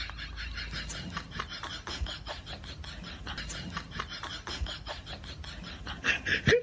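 Irregular light scratching and tapping of a cat's claws and paws scuffing on a wooden floor.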